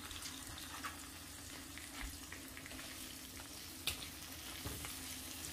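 Food sizzling steadily in a clay tagine over a butane gas burner, with a few light clicks and taps of hands working in a second clay tagine, the sharpest about four seconds in.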